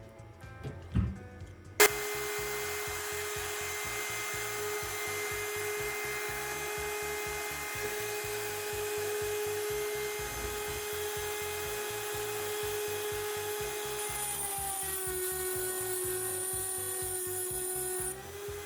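A small electric power tool, like a drill or rotary tool, switches on about two seconds in and runs at a steady speed. For about four seconds near the end its pitch drops slightly and a high hiss comes in as it bites into material, then it returns to its free-running speed.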